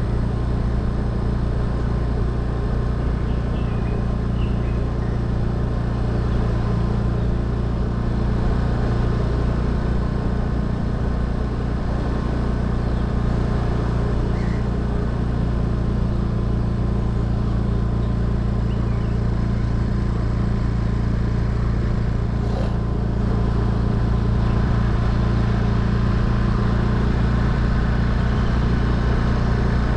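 A road vehicle's engine running steadily while cruising, a constant low hum with tyre and road noise, and a few faint high chirps over it.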